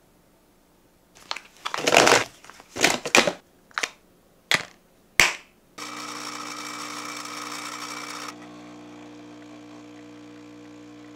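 Several short, loud handling noises, then a steady machine hum that starts suddenly, its higher part dropping away a couple of seconds later.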